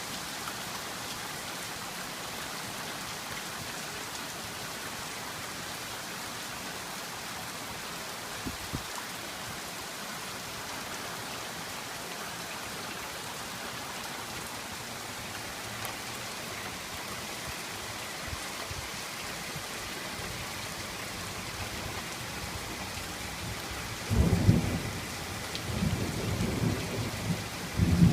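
Heavy rain falling steadily as an even hiss. Near the end a loud thunderclap breaks and rolls on in rumbling bursts.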